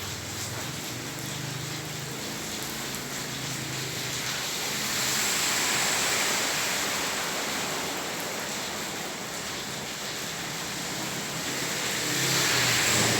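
Heavy rain hissing on a flooded street while vehicles drive through the standing water: a swelling rush of tyres through water about five seconds in and another near the end, with a low engine hum.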